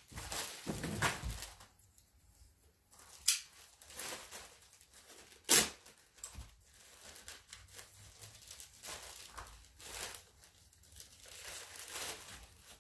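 A clear plastic bag crinkling and tearing as it is pulled open by hand, with irregular rustling and two sharp rips, the louder one about five and a half seconds in.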